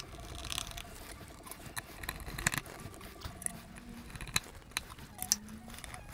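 Small screws being put back into a plastic car door mirror housing by hand: light, irregular clicks and ticks of metal on plastic.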